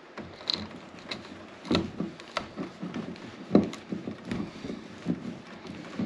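Handling noise of a plastic twist-on wire connector being screwed onto electrical wires by hand, with irregular small clicks, knocks and rustling, a few sharper clicks near the middle.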